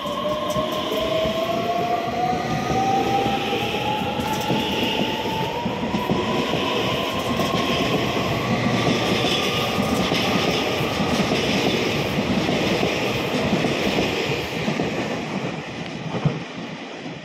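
Taiwan Railway EMU3000 electric multiple unit pulling out of the station and accelerating past. Its traction motors whine in a pitch that rises steadily over the first ten seconds or so, and its wheels click over the rail joints. The sound fades as the train draws away, with one sharp click near the end.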